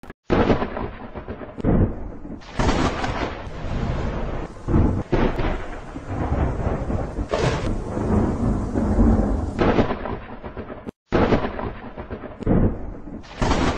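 Thunder sound effect: a series of rumbling claps and rolling crashes swelling and fading one after another, cutting out for a moment about eleven seconds in.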